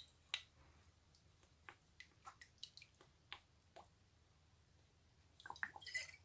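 Faint drips and small ticks of liquid seasoning being poured from a bottle into a plastic measuring spoon, with a quick cluster of small clicks near the end.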